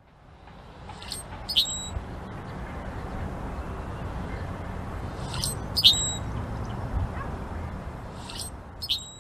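A wild bird calling a short two-note call three times, a few seconds apart: a quick note, then a sharper one with a clipped high ending. The calls sit over a steady low background rumble.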